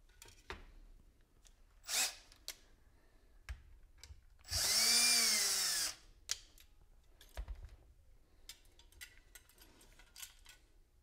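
A cordless drill turning a screw that holds a copper-wire whisker against a wooden antenna board. There is one run of about a second and a half whose pitch rises and then falls as the trigger is squeezed and let go. Short knocks and clicks come from handling the board and wire.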